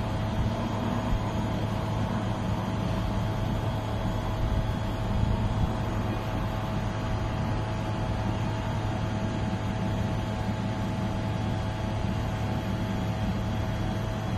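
Steady city night drone: a constant low hum with a few faint steady tones over it, and no separate events.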